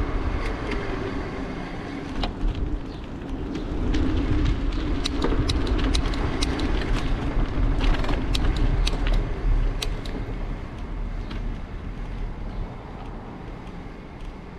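Ride noise picked up by a GoPro on a bicycle: a steady, uneven low rumble of wind and tyres on the road, with a cluster of sharp clicks and rattles about five to ten seconds in.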